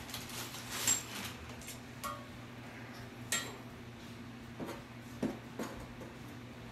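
Metal plumbing fittings clinking and tapping against a ceramic washbasin: a handful of sharp chinks with a short ring, the loudest about a second in, a second clear one after about three seconds, then lighter knocks. A steady low hum runs underneath.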